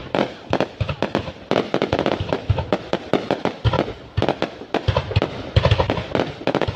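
Fireworks going off in a dense, irregular barrage of sharp bangs and crackles, several a second, with a few deeper booms among them.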